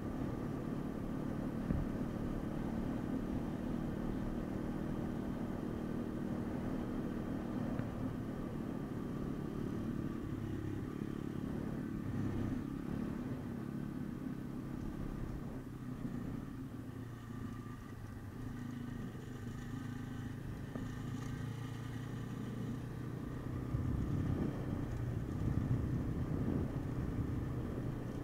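MRF 140 RC pit bike's 140 cc single-cylinder engine running while ridden, its pitch rising and falling with the throttle, getting louder near the end.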